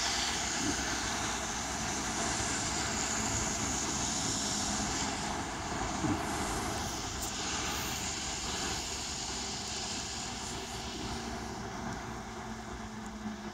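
Steady road noise of a car moving over rain-wet streets: a low engine hum with an even tyre hiss, slowly getting a little quieter.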